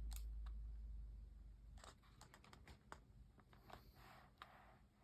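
Near silence: a low rumble fades over the first two seconds, then faint, scattered clicks follow.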